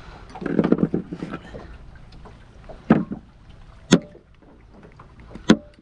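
Needle-nose pliers and a small snail shell clattering and knocking on a hard plastic cooler lid while the shell is being worked at to crack it. A short burst of rattling clatter comes first, then three separate sharp knocks.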